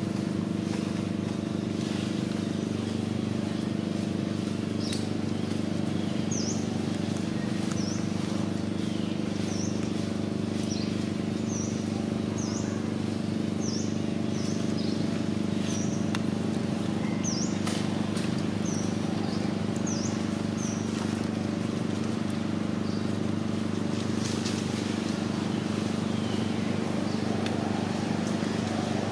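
A small bird chirping, short sharp high notes about once a second for some fifteen seconds, over a steady low hum.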